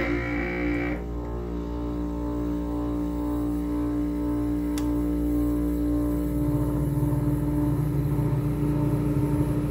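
1975 Climatrol (Fedders) window air conditioner running on cool just after switch-on, its Matsushita rotary compressor and fan motor giving a loud, steady hum with a pulsing low buzz, plus a brief high whine in the first second. Really noisy because the compressor mounts are shot.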